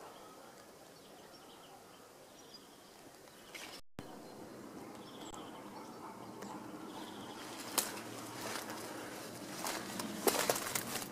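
Outdoor ambience with faint bird chirps and insect buzzing over a low noise bed. The sound cuts out briefly about four seconds in. In the second half it grows louder, with rustling and a few sharp clicks near the end.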